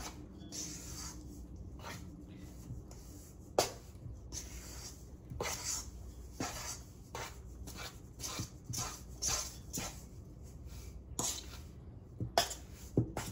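A utensil scraping and clinking against a stainless steel mixing bowl while stirring flour, salt and water into a stiff salt dough, in irregular strokes about once or twice a second.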